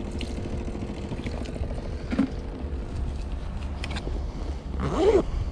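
A cat meows once about five seconds in, a short call rising and then falling in pitch, over a steady low rumble of wind on the microphone.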